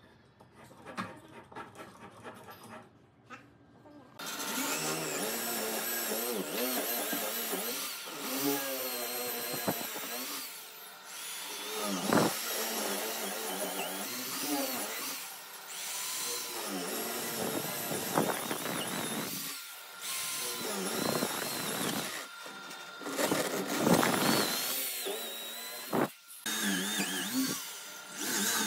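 Corded electric drill boring holes into a thick wooden board with a large wood-boring bit. It starts about four seconds in, and the motor's whine rises and falls as the bit bites, with a few short stops between bursts.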